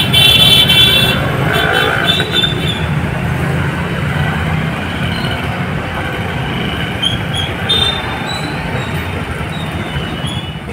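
Busy road traffic: trucks, motorbikes and scooters passing with a steady low rumble of engines and tyres. A vehicle horn sounds at the start and stops about a second in, and a few short high toots come later.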